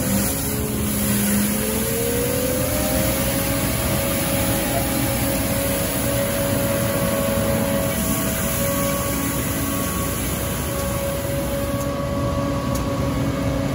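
Street sweeper truck at work, with its engine and sweeping gear running in a steady mechanical drone as the side broom brushes milled asphalt. One tone rises in pitch about a second in.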